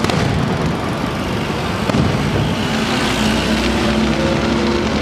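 Aerial firework shells bursting overhead: a continuous rumble of booms and crackle, with a heavy boom at the start and another about two seconds in.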